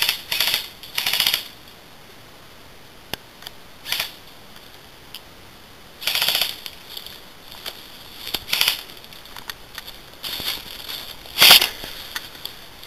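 Airsoft guns firing in several short rattling bursts of rapid shots, with a few single shots between; the loudest burst comes near the end.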